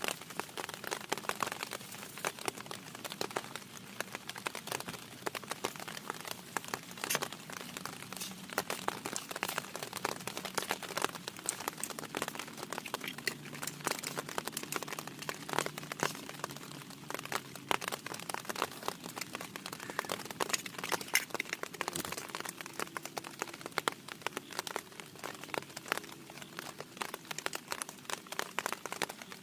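Heavy rain falling on a tent's fabric: a dense, irregular patter of sharp drop hits.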